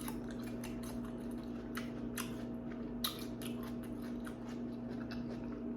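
A person chewing food close to the microphone: irregular wet mouth clicks and smacks, one sharper one about three seconds in, over a steady low electrical hum.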